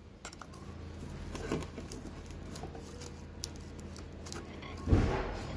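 Light taps and scratches of a blade working on a car radio's LCD panel, cutting away its polarizer film, with one louder knock near the end over a steady low hum.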